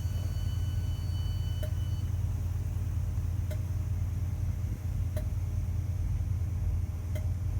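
Train rumbling steadily, with a faint click about every two seconds and a high steady whine that stops about two seconds in.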